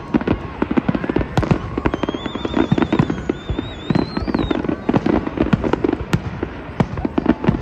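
Fireworks display: a dense, irregular barrage of bangs and crackling shell bursts. From about two to four and a half seconds in, a warbling whistle wobbles up and down above the bangs.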